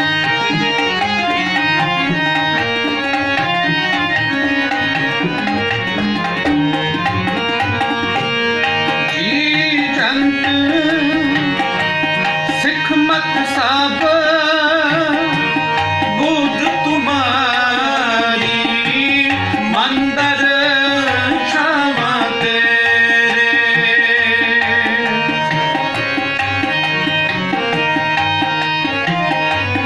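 Sikh kirtan: two harmoniums sound a steady, held melody over a tabla rhythm. From about a third of the way in to about three quarters, a voice sings wavering, ornamented runs over them.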